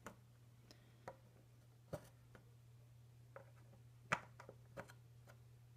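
Near silence with a steady low hum. Scattered faint clicks and taps come from soldering-iron work on the back of a circuit board, and the loudest falls about four seconds in.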